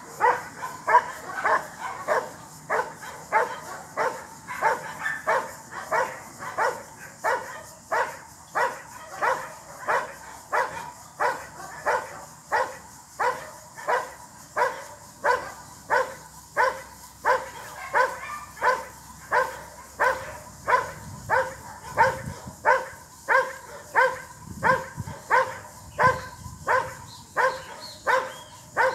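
Dog barking steadily and rhythmically at the helper in a hiding blind: the hold-and-bark exercise of IGP protection work. The barks are loud and evenly spaced, about three a second at first, easing to about two a second.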